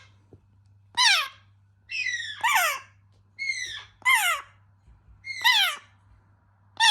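African grey parrot chicks making begging calls, typical of chicks at feeding. The calls repeat roughly once a second, each one dropping in pitch.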